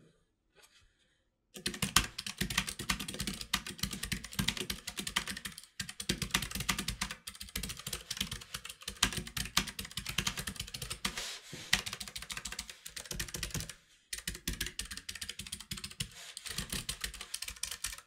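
Keychron K3 low-profile mechanical keyboard with clicky blue switches being typed on quickly: a dense run of sharp keystroke clicks that starts about a second and a half in, with a brief pause near the end.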